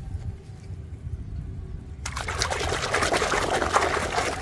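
A hand swishing and splashing through foamy, muddy soapy water in a plastic basin, with water spilling back down, starting suddenly about halfway through.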